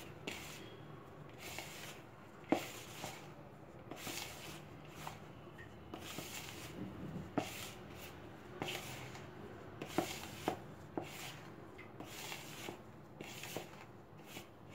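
Fingers rubbing and working a dry flour, powdered sugar and ghee mixture in a plastic bowl: a soft, repeated rustling, with a few light clicks against the bowl.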